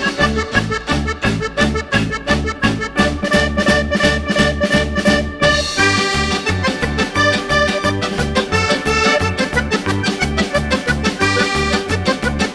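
Background music with a steady, bouncy beat and sustained melody notes.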